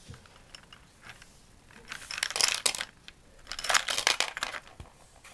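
Small plastic toy food pieces rattling in the turning food bin of a Hamsters in a House toy supermarket playset, in two short bursts, about two seconds in and again about four seconds in, with a few light plastic clicks before them.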